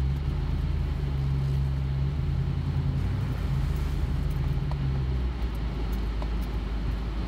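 Toyota Tundra pickup heard from inside the cab, rolling slowly along a dirt trail: a steady low engine drone with rough-road noise. The higher part of the hum eases off about five seconds in.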